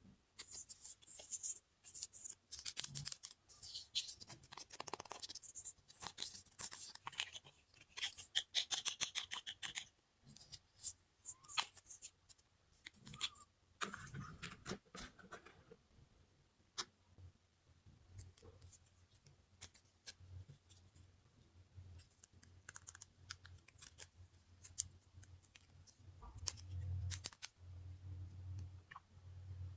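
Small plastic toy pieces and packaging being handled and unwrapped: rapid clicks, snips and crinkly scratching. It is busiest in the first half and becomes sparser later on.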